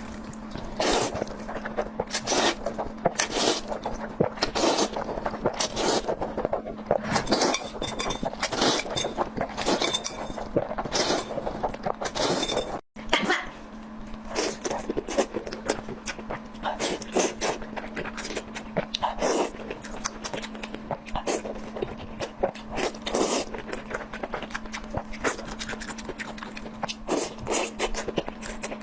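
Close-miked eating sounds: a continuous irregular run of chewing and biting clicks and smacks over a steady low hum, with a momentary cut-out about halfway through.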